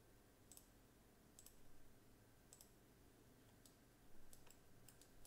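Faint computer mouse clicks, about ten of them at irregular spacing with several close together near the end, over near-silent room tone.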